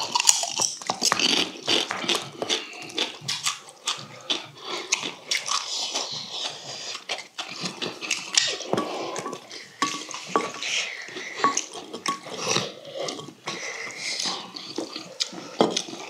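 Mukbang eating sounds: slurping and chewing of rice soaked in fish-stew broth, with many short clinks of metal spoons and chopsticks against stainless steel bowls.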